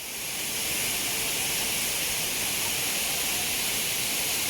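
Waterfall's steady rush of falling water, fading in over the first second.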